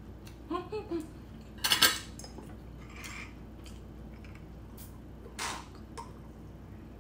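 Table and eating sounds: a short hummed "mm" while chewing, then a metal butter knife set down with a clatter on a ceramic plate just under two seconds in, the loudest sound. Later come a soft sip drawn through a straw and a light tap.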